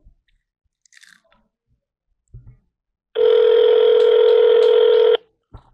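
Ringback tone of an outgoing call through a smartphone's speaker: one steady two-second ring about three seconds in, meaning the other phone is ringing and has not been answered. A few faint handling clicks come before it.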